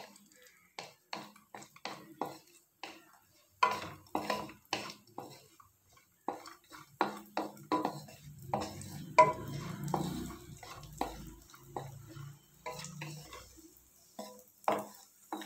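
Wooden spatula stirring cashews and raisins frying in ghee in a pan, giving irregular taps and scrapes against the pan. A low rumbling noise runs under the stirring for a few seconds around the middle.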